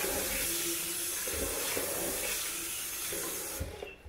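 Kitchen tap running into a plastic basin of wheat grains while a hand stirs them in the water, rinsing out empty husks. The tap is shut off about three and a half seconds in.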